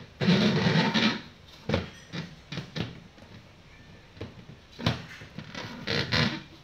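A plastic stool scraping and knocking on a tile floor as a puppy noses and shoves it. There is a scrape of about a second at the start, several sharp knocks, and another scrape near the end.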